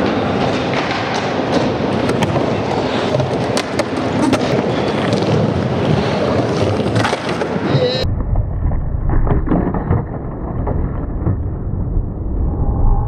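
Skateboard wheels rolling and carving on the concrete bowl, with scattered clacks and knocks from the board and trucks. About eight seconds in, the sound turns suddenly muffled and bass-heavy while the rolling and a few knocks go on.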